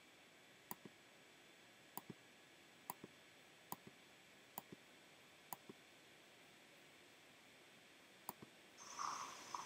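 Computer mouse clicks, seven press-and-release pairs spaced about a second apart with a longer gap before the last. Near the end a louder hissy sound comes in as the ad's video starts to play.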